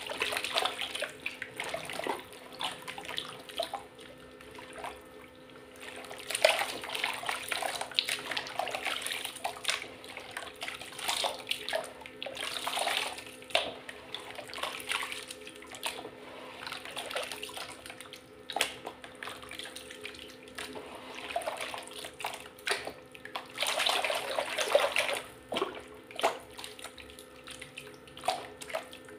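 Hands squeezing and swishing soft wet mud slurry in a plastic tub: irregular squelching and sloshing, with several louder stretches of splashing.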